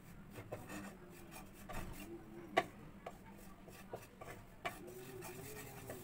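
Wooden spatula scraping and stirring flour being toasted in butter and oil around a non-stick frying pan, the start of a roux for white sauce. The stirring is repeated and rasping, with one sharper click a little before the middle.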